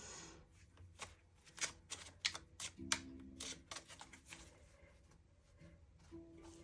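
Tarot cards being handled and shuffled: a quiet run of sharp card clicks and snaps, thickest in the first few seconds and thinning out after.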